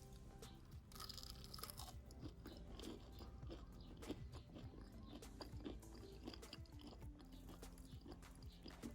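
Faint crunching and chewing: someone eating a fried, breadcrumb-coated cheesy potato ball. Quiet background music with a few steady tones plays underneath.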